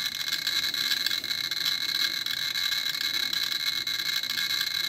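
Geiger counter clicking so rapidly against a strong radioactive check source that the clicks run together into a dense crackle, with a steady high-pitched tone under it. The rate marks a high dose reading of around 40 microsieverts per hour.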